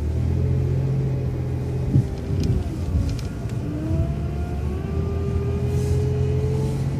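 City transit bus engine pulling away, with a low steady hum and a whine that climbs slowly in pitch as the bus gathers speed. There is a single sharp knock about two seconds in.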